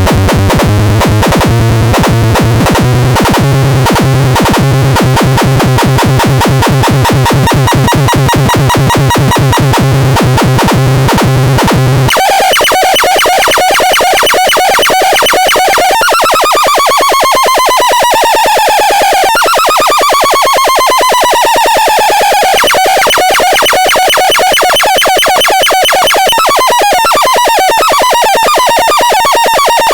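Synthesized electronic sounds. A fast, even pulsing buzz on low tones changes abruptly about twelve seconds in to higher, harsher tones. These include a few falling pitch sweeps.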